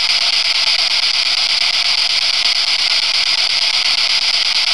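Spirit box static: a radio scanning through stations gives a steady, loud hiss with no voices coming through.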